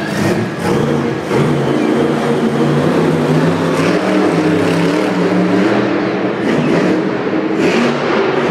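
Maximum Destruction monster truck's supercharged V8 engine revving hard as the truck drives across the dirt, its pitch climbing and dropping with the throttle. Near the end it stands the truck up on its rear wheels.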